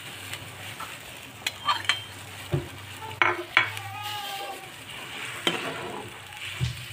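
A spoon stirring cabbage into boiling broth in a wok, knocking and scraping against the pan several times over the steady hiss of the boil.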